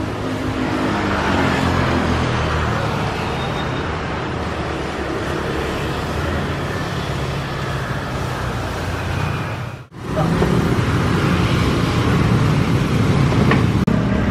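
Steady road traffic noise with a low rumble. It drops out briefly about ten seconds in, and the low rumble is louder afterwards.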